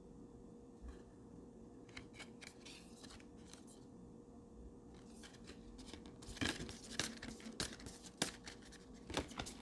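Thick cardstock greeting cards being handled: faint paper rustles and scattered short taps and snaps, getting busier and louder in the second half.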